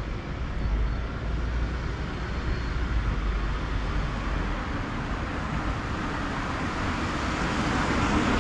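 Low engine rumble of a coach running nearby, fading about five seconds in, over steady city traffic noise that grows louder near the end.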